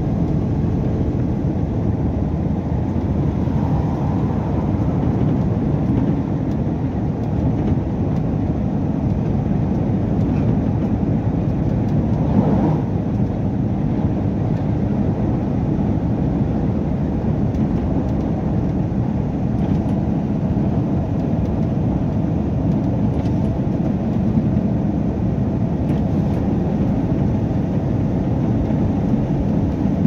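Truck engine and road noise heard from inside the cab: a steady low rumble while cruising along the highway.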